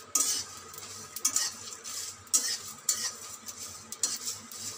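Flat metal spatula scraping and stirring whole spices and dried red chillies around a dry metal kadai in irregular strokes, with the seeds crackling faintly as they roast.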